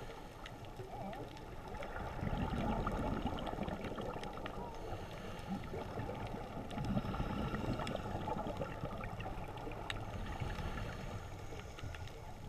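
Underwater ambience heard on a submerged camera: a steady low rushing of moving water with scattered faint clicks and crackles, the rumble swelling louder about two seconds in and again around seven seconds.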